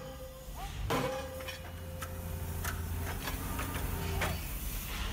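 Hydraulic forging hammer striking a red-hot S45C steel coupling blank in its die: one heavy blow about a second in, then a few lighter knocks over a steady machine hum.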